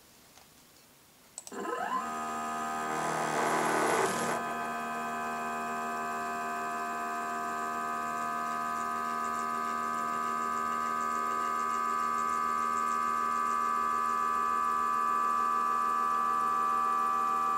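Stepper motors driving a scratch-built motion control camera rig's slide and pan axes. The whine rises in pitch as they ramp up about a second and a half in, is louder and rougher for a second or so, then holds as a steady whine of several tones until it drops in pitch as they slow at the very end.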